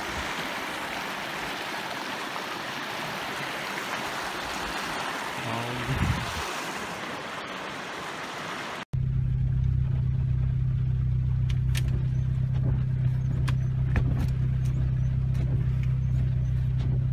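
Mountain creek rushing over rocks, a steady rush of water. After a sudden cut about nine seconds in, a car cabin with the engine idling, a steady low hum with scattered sharp taps.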